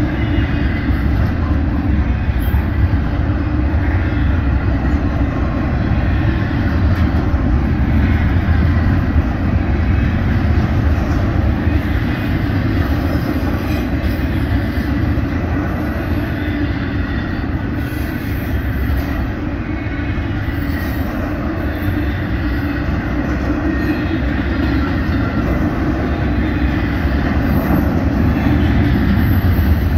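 Double-stack intermodal well cars rolling past at speed: a steady, loud rumble of steel wheels on the rails that keeps going without a break.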